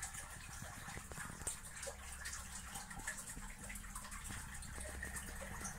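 Paper pages of a small instruction booklet being handled and turned, giving an irregular rustling and crinkling dotted with many small clicks, over a faint low hum.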